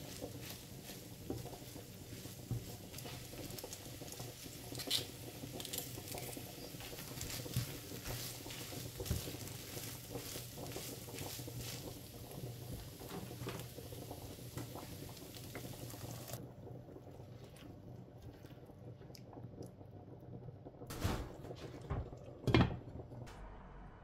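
Minced meat with peas and carrots sizzling in a frying pan, with light scrapes and clicks as it is seasoned and stirred with a spatula. About two-thirds of the way through the sizzling stops, and near the end come two sharp knocks.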